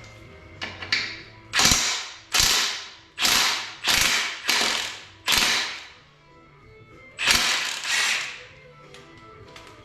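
Hand ratchet wrench clicking through repeated strokes: six quick ratcheting bursts, each starting sharply and fading, then after a short pause two more.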